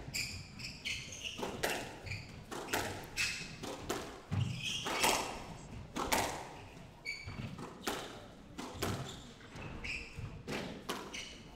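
Squash rally: the rubber ball cracking off rackets and thudding into the court walls in sharp, irregular hits roughly once a second, with players' shoes squeaking on the wooden court floor between shots.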